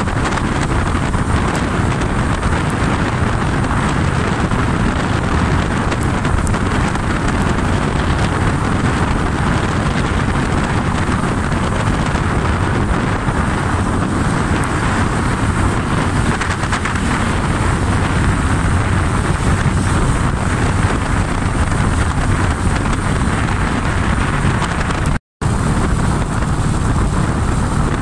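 Wind rushing over the microphone of a moving motorcycle, with the Honda Splendor NXG's 100 cc single-cylinder engine running steadily underneath. The sound cuts out for a split second near the end.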